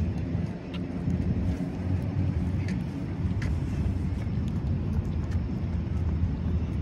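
Steady low outdoor rumble, with three faint short high ticks about one, two and a half, and three and a half seconds in.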